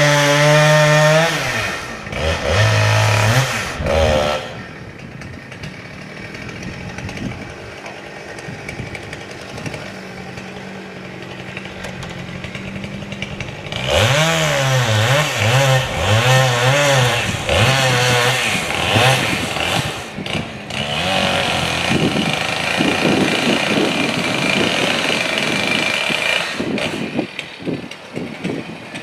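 Two-stroke chainsaw running at full throttle, then dropping to idle about two seconds in after a couple of short blips. It idles steadily for roughly ten seconds, then is revved up and down repeatedly and runs on hard and rough near the end.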